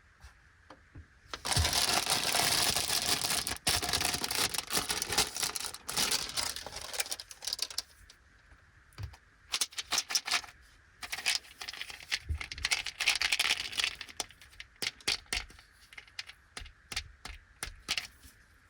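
Plastic candy packaging crinkling and tearing for several seconds, then a run of small sharp clicks and rattles as the sweets and their packets are handled and set down, with another short burst of crinkling in the middle.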